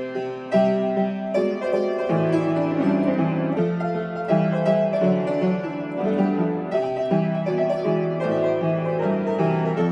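Upright piano played with both hands: a bass line moving in steady notes under chords and a melody.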